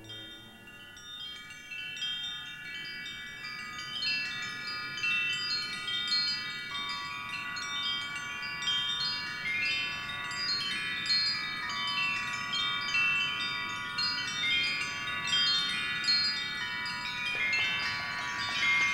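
Wind chimes tinkling: many overlapping high ringing notes that grow denser and louder from a couple of seconds in. A rushing noise joins near the end.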